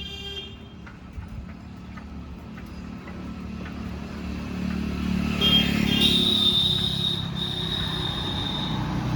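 Road traffic noise: a motor vehicle's engine grows louder over the first half, then runs close by with a steady rumble. A high steady whine is heard near the end.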